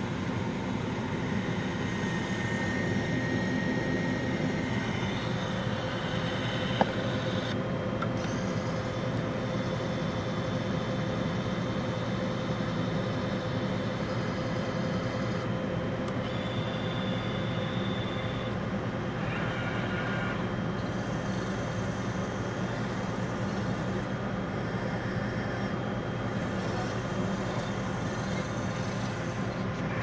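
CEM Discover-S microwave digestion system and Explorer 48 autosampler running, a steady hum of fans and motors with several steady tones over it. There is a single sharp click about seven seconds in.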